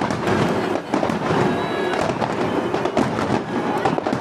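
Fireworks display going off: a dense run of bangs and crackling bursts, with music playing underneath.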